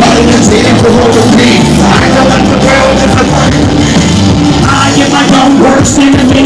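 Live concert music played very loud: a heavy rock-style backing with a vocal line carried over it.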